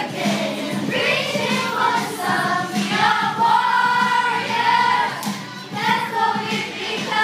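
School choir of girls singing together, holding long notes.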